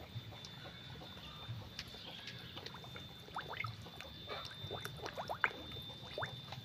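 Water trickling and splashing lightly, a run of small quick plops over the middle few seconds. A steady high-pitched whine runs underneath.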